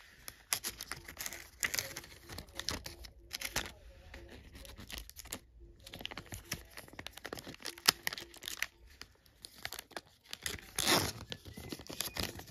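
Foil wrapper of a trading-card pack crinkling in irregular crackles as the cards are slid out of it, with one louder crinkle near the end.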